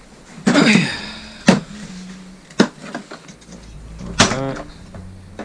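A plastic carry case holding a small stick welder is pulled out and opened. There is a scraping rustle about half a second in, then three sharp clicks of its latches and lid about a second apart.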